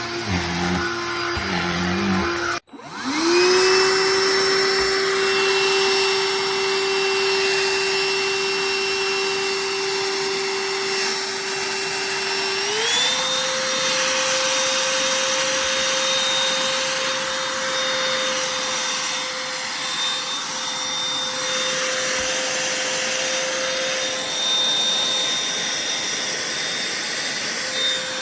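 Cordless handheld vacuum cleaner's motor cutting out briefly about three seconds in, then spinning back up to a steady whine. Around halfway through its pitch steps up and holds at the higher note.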